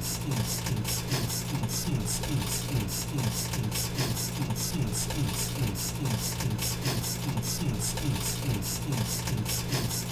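Background music with a steady low drone and a fast repeating beat.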